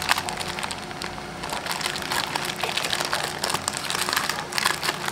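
Clear plastic packaging bag crinkling and crackling in the hands as it is pulled open, with a sharper crackle right at the start.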